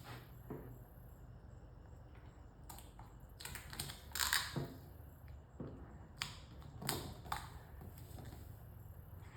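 Scattered light clicks and scrapes of hands trimming and working a vinyl stripe on a car body panel. The loudest is about four and a half seconds in.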